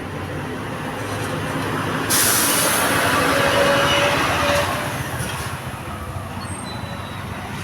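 A bus engine running, with a sudden loud hiss of air about two seconds in that lasts a couple of seconds, as a bus's air brakes release.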